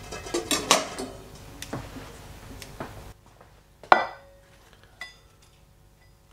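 Stainless steel kettle clinking and rattling, its lid and handle knocking as it is lifted from the stovetop, in a quick run of sharp ringing clinks. Near four seconds in, a metal mug is set down on a wooden bench with a single loud knock, and a faint tick follows a second later.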